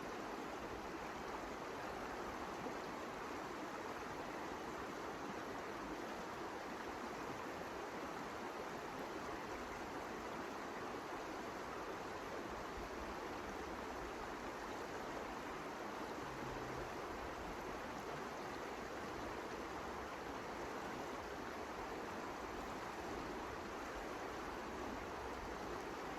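Steady, unbroken rushing noise that stays even throughout.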